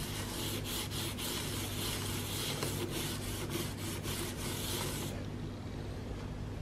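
The scouring side of a damp sponge scrubbed hard back and forth over plastic wicker painted with enamel tile paint, a rough rubbing scrape of quick strokes that stops about five seconds in. It is a scrub test of how well the paint holds.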